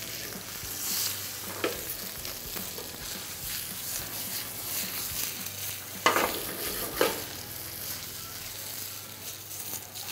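Halved potatoes sizzling in hot oil in a stainless steel frying pan on a gas burner, with a beef steak frying in butter in a second pan. The pan is tossed and knocks against the burner a few times, sharpest about six and seven seconds in.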